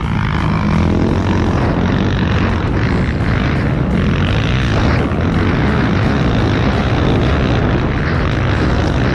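ATV quad bike engine running hard at high revs, heard from on board the machine, the revs rising and falling as it races over dirt.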